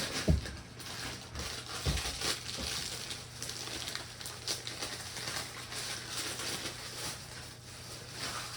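Hands handling a hard drive and its plastic drive-tray parts: a couple of knocks in the first two seconds, then rustling and crinkling with scattered small clicks.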